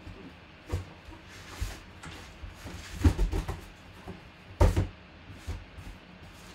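A series of knocks and clunks from objects being handled and set down. The loudest is a quick cluster about three seconds in and a heavy knock about four and a half seconds in.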